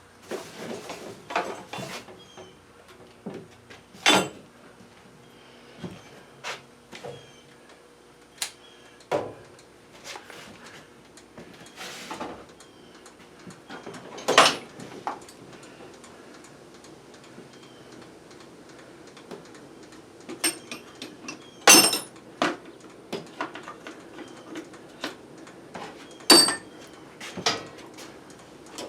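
Scattered clanks and knocks of things being handled and set down in a workshop, several of them sharp and loud, over a faint steady hum.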